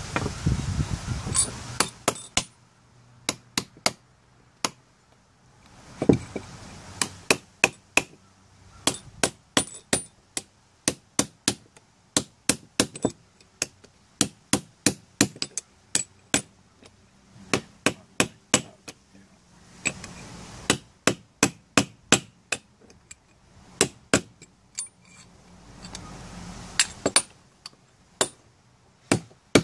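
Hammer striking a copper pipe reducer slid onto a screwdriver shank used as a mandrel: dozens of sharp metallic taps in quick runs, about two a second, with short pauses between runs. The fitting is being opened up to fit a MIG welding tip.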